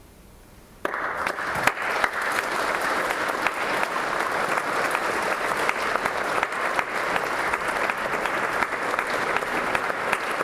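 Audience applause starting suddenly about a second in after near quiet, then dense, steady clapping from a large crowd.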